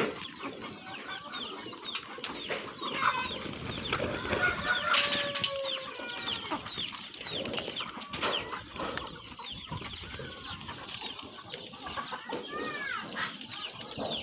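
A flock of indigenous chickens clucking and calling, many short calls overlapping one another.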